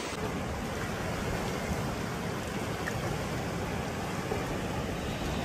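Sea surf washing over rocks, a steady rushing noise.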